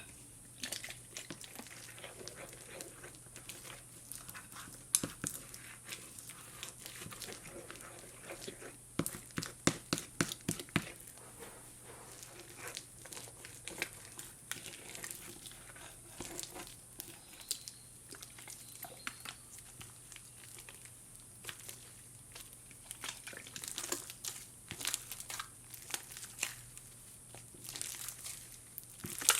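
Glue slime with hydrogel being mixed and worked as activator is added: scattered short sticky clicks and pops, with a quick run of them about ten seconds in and more near the end.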